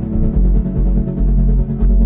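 Background music: sustained held tones over a pulsing low bass.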